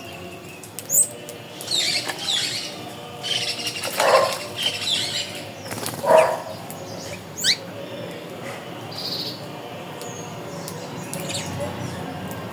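Birds calling: scattered short chirps that drop in pitch, with two louder, lower calls about four and six seconds in.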